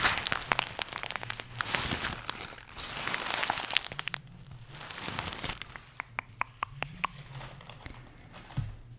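Product packaging crinkling and tearing as it is handled and opened, close to the microphone, then a quick run of about eight light clicks or taps.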